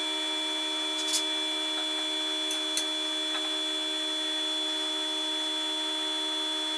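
Steady electrical hum made of several fixed tones, with a few light clicks about one and two and a half seconds in.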